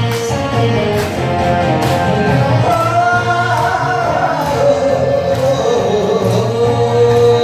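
Korean trot accompaniment music with a steady drum beat and bass, and a melodic line that bends up and down through the middle.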